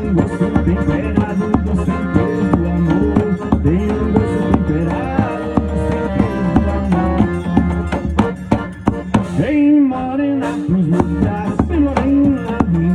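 Forró music played by a band: a melody line over a steady drum and percussion beat.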